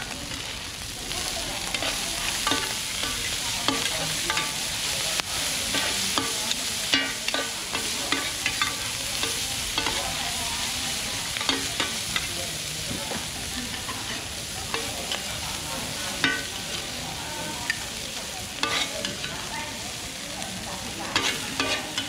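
Mussels and bean sprouts sizzling in oil on a wide, flat steel pan, with metal spatulas scraping and clacking against the pan many times as the food is stirred and turned.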